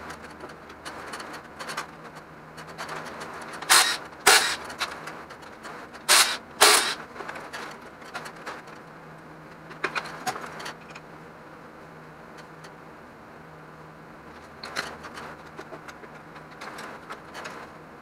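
Sharp metal clanks and clicks of pistons and connecting rods being handled during a GM 5.3 LS V8 engine teardown: two quick pairs of loud clanks about four and six seconds in, then lighter clicks and scrapes, over a faint steady hum.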